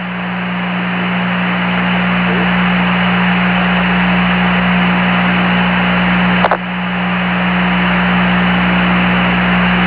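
Loud steady static hiss with a low hum on the open Apollo 11 air-to-ground radio channel between transmissions, broken by a brief click about six and a half seconds in.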